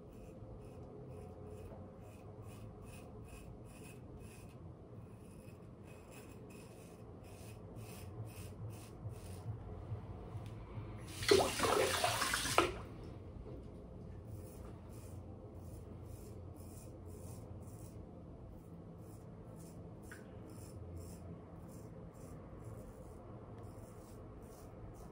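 Straight razor scraping through lather and two-and-a-half-day stubble in many short strokes. Near the middle a tap runs hard for about a second and a half, the loudest sound.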